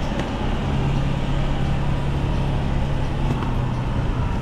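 Street traffic: a vehicle engine hums steadily at a low pitch over a steady hiss.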